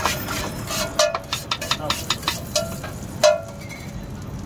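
Steel spatula chopping and tapping on a flat iron griddle (tawa), working chillies and coriander in oil: a quick run of ringing metallic clinks for about three seconds, ending with one louder clank when the spatula is set down.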